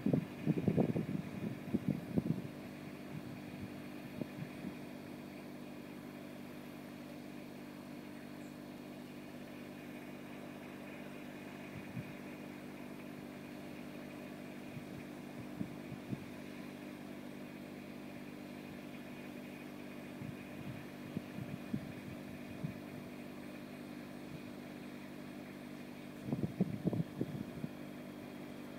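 Trailer-mounted diesel pump set running steadily at a constant speed. Brief louder rumbles break in during the first couple of seconds and again near the end.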